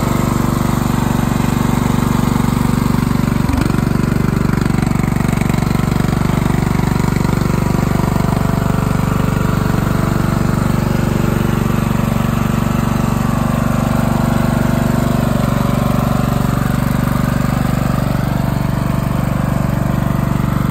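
Briggs & Stratton 17.5 HP OHV single-cylinder engine of a Craftsman LT1000 riding mower running steadily at an even speed. A single brief knock about three and a half seconds in.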